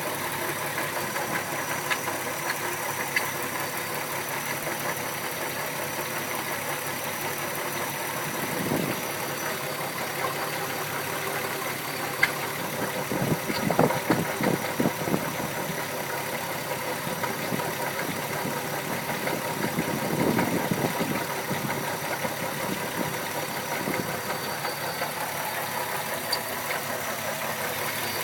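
Volkswagen Golf Mk4's 12-valve VR6 engine idling with a knocking noise that the owner cannot explain. It runs steadily, with a few louder, uneven spells.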